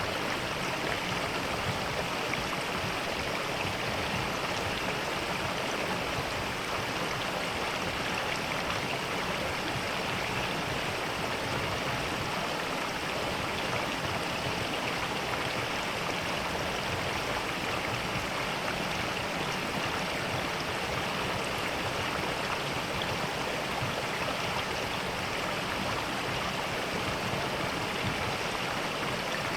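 Mountain stream rushing steadily over rocks, a constant even water noise.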